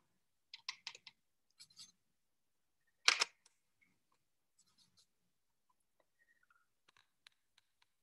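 Scattered light clicks and taps from handling watercolour painting tools, with one sharper click about three seconds in.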